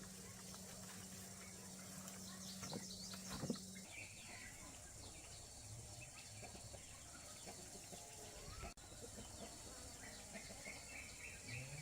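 Faint bird calls: short chirps, a few of them in quick runs. Under them is a steady low hum that stops about four seconds in, with a couple of knocks just before.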